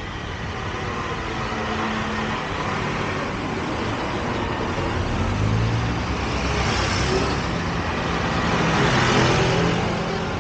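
Street traffic passing close by: cars driving through an intersection one after another, their engine and tyre noise swelling and fading, with the loudest pass near the end.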